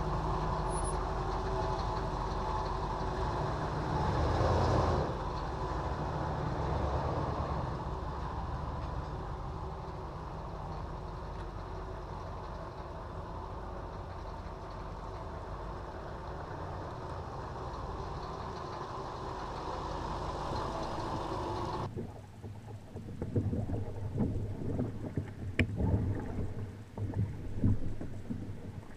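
Fleetwood Flair class A motorhome's engine running as it pulls away, swelling about four seconds in and then slowly fading as it drives off. After a sudden cut near the end come kayak paddle strokes splashing on calm water.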